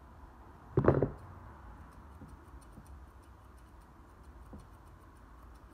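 Grooming scissors snipping through the model head's synthetic wig fur: a run of light, quick clicks. A brief louder sound comes about a second in.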